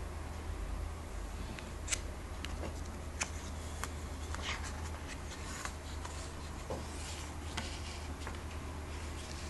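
Glossy comic-book paper rustling and crinkling as the issue is handled and its cover is opened, with scattered small clicks of paper and fingers, over a steady low hum.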